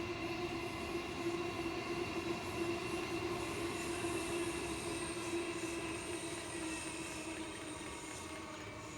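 Queensland Rail electric suburban train running past with a steady motor whine and a high-pitched whine above it. The sound fades gradually over the last few seconds as the train moves away.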